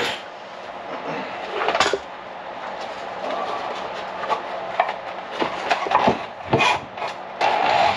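Scattered knocks and clatter of hard objects being handled: one loud knock about two seconds in, then a quick run of several knocks near the end, over low background noise.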